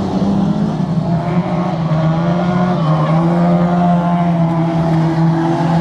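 Banger racing cars' engines running hard as the cars race round the dirt oval and pass by, the engine note dipping slightly about three seconds in.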